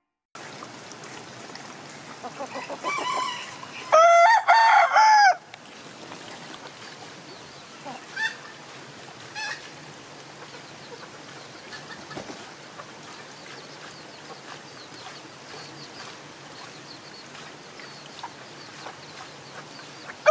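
Ayam Cemani rooster crowing once, loud and about a second and a half long, starting about four seconds in, preceded by a few soft clucks. A couple of faint short calls follow, and a second crow begins right at the end.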